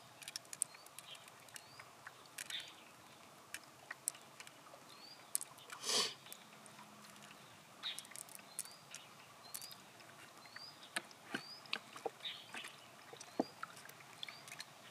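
Soft wet squelches, scuffs and scattered small clicks as gloved hands work pearls out of the flesh of an opened pearl mussel, with one louder rustling scrape about six seconds in. Short high chirps recur faintly in the background.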